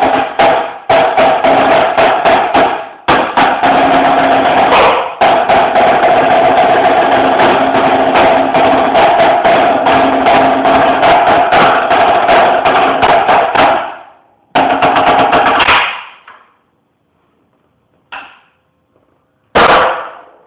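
Marching snare drum played with sticks: fast strokes and long sustained rolls that stop about fourteen seconds in, a short burst, then a pause broken by a light tap and one loud accent near the end.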